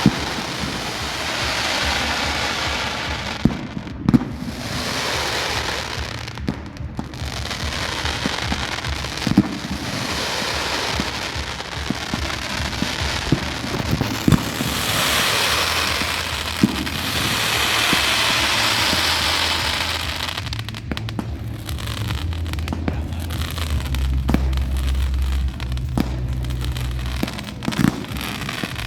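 Fireworks display: sharp bangs at irregular intervals over long swells of crackling, fizzing sparks lasting several seconds each, with a deep rumble near the end.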